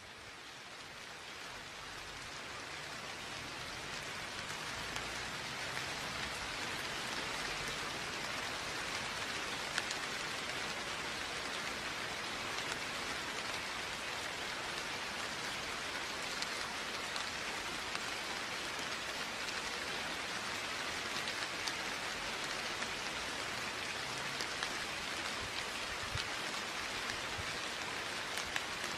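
Steady rain falling, an even hiss with scattered individual drop ticks, fading in over the first few seconds. No thunder.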